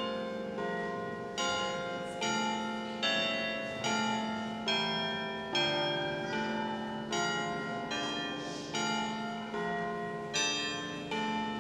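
Church bells ringing a peal, one bell struck about every 0.8 s, each at a different pitch and ringing on under the next.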